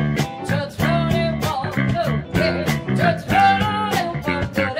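Live blues-rock band playing: a woman's lead vocal over electric guitar, bass and drums, with a steady beat.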